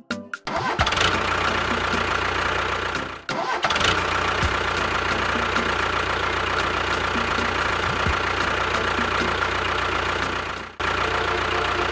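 An engine-like machine sound running steadily, cutting out briefly about three seconds in and again near the end.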